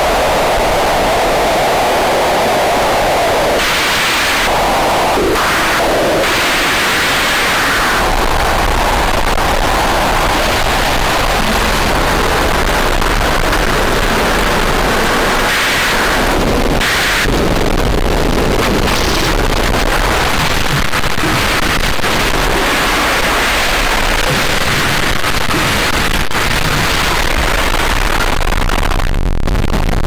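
Harsh digital noise music: a loud, dense wall of static and hiss, cut and spliced abruptly every few seconds, with a deep rumble coming in about eight seconds in.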